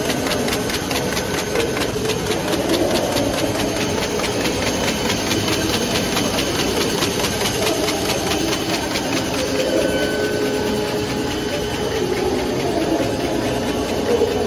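LB1200 high-speed paper box forming machine running steadily: a continuous mechanical hum with fast, regular clicking from its moving parts.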